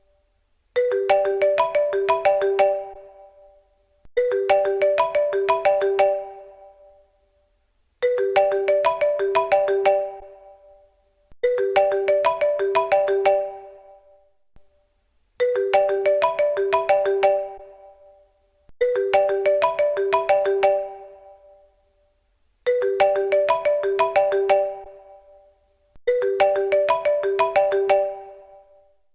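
Apple iPhone default ringtone playing: the same short run of bright, quick notes repeats eight times, a new phrase about every three and a half seconds, each one fading out before the next begins.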